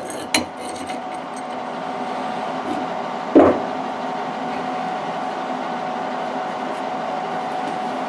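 Small steel latch parts being handled and set down on firebrick: a light clink near the start and one solid knock about three and a half seconds in, over a steady machine hum.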